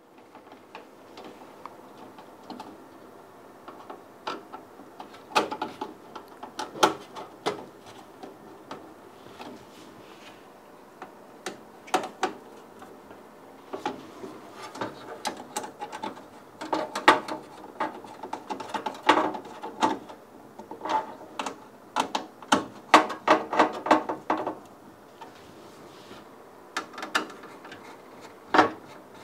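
Screwdriver tightening the screws that hold a motherboard to the metal standoffs of a PC case: repeated bursts of small clicking and rattling with short pauses between them.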